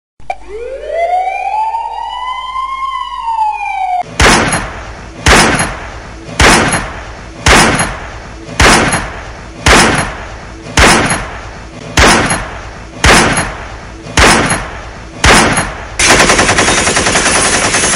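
A siren winds up and slowly falls back over about four seconds. Eleven loud single bangs follow, evenly about a second apart, and near the end a burst of rapid machine-gun fire.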